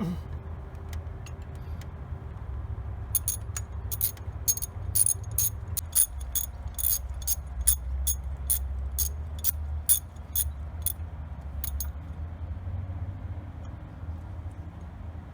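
Ratchet wrench clicking as a new spark plug is tightened into the cylinder head: a run of sharp, evenly spaced clicks, about three a second, starting a few seconds in and stopping near the end, over a low steady rumble.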